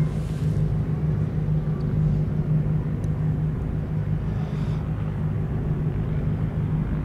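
Light single-engine propeller plane landing, its piston engine and propeller giving a steady, even drone.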